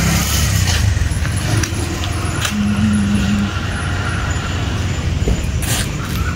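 Steady outdoor background noise with a low rumble, and a brief low hum about two and a half seconds in that lasts about a second.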